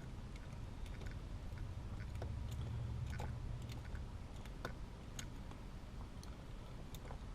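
Hands working a synthetic winch rope into the drum of an ATV winch: scattered small clicks and rustles over a low rumble.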